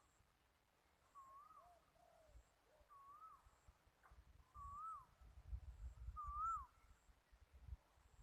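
A bird calling faintly, repeating a short rising-and-falling note about every one and a half to two seconds, five times. A low rumble of wind or handling noise comes through about halfway in.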